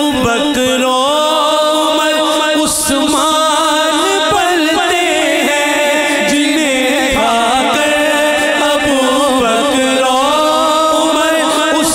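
A man singing a naat, an Urdu devotional poem in praise of the Prophet Muhammad, in long gliding melodic lines into a microphone over a steady held drone.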